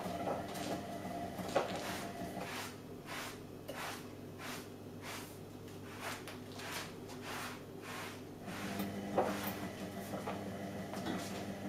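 Whirlpool washing machine in its wash cycle: a steady motor hum as the drum turns, with laundry and water sloshing about twice a second and an occasional louder knock.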